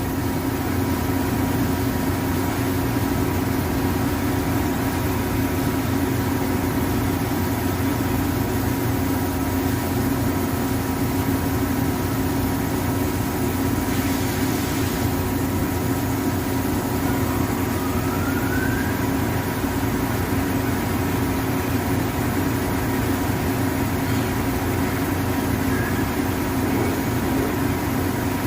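CNC lathe running with a steady machine hum, a short hiss about halfway through, and a faint rising whine a little later.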